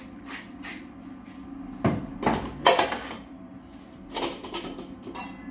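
A few faint last turns of a pepper mill, then several sharp knocks and, about four seconds in, a smaller clatter, from the wooden pepper mill being set down on the worktop and a small stainless-steel salt pot being picked up.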